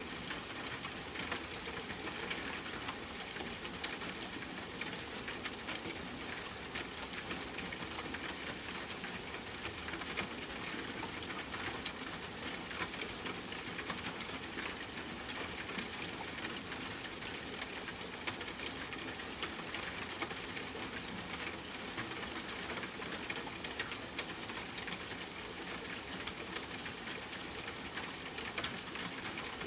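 Steady rain falling, with many small drop ticks and patters over an even hiss.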